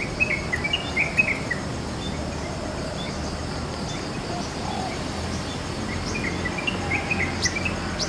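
Yellow-vented bulbul (trucukan) singing: two quick phrases of short, bubbly notes, one about a second in and another near the end, over a steady high insect drone.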